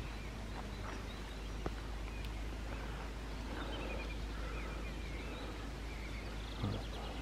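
Faint birdsong of short chirps and whistles, over a steady low rumble.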